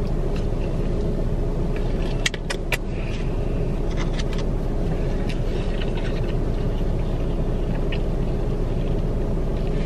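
Steady low rumble of a car running, heard from inside the cabin, with a faint steady hum and a few brief soft clicks about two to three seconds in.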